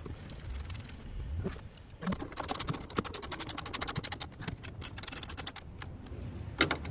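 Ratchet wrench clicking rapidly for a few seconds as the 10 mm bolts holding the new frunk latch are tightened, followed by a single louder knock near the end.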